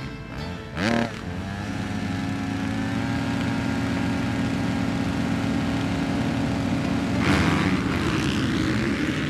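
A field of motocross bikes revving at the start line: one engine sweeps up in pitch about a second in, then many engines hold a steady high-revving note together. About seven seconds in the sound surges louder and rougher as the bikes launch off the start.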